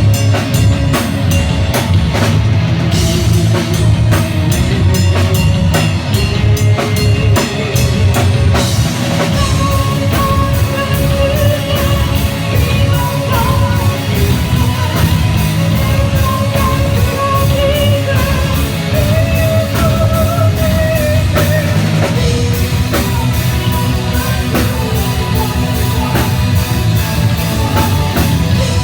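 Rock band playing live: a drum kit hitting fast and dense under electric guitars, with a melody line riding over the top from about nine seconds in.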